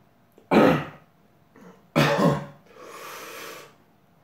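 A man coughs hard twice, about a second and a half apart, then breathes out heavily, reacting to the burn of a very hot chilli sauce.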